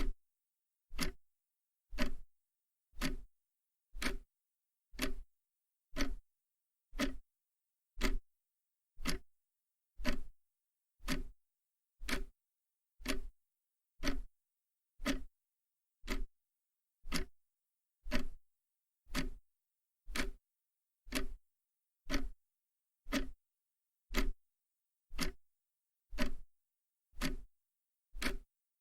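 Mechanical clock ticking steadily, one tick a second, each tick a short sharp click with a low knock beneath it.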